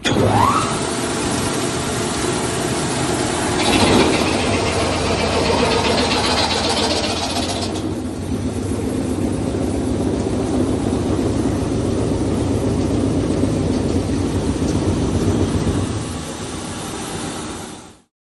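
Cresswood 50 HP low-speed horizontal grinder running. It comes in suddenly with a brief rising whine, then runs with a dense, steady mechanical noise. From about 4 to 8 seconds in a louder, brighter layer rides on top. The sound cuts off abruptly near the end.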